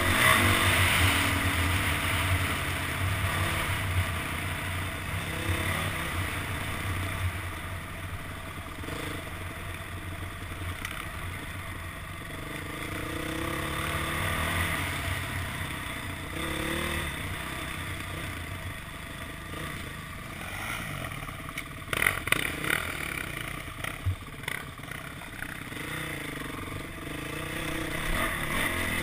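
Dirt bike engine running and revving up and down with the throttle while riding a dirt trail, heard from on the bike with wind noise on the microphone. A few sharp clattering knocks come about three-quarters of the way through.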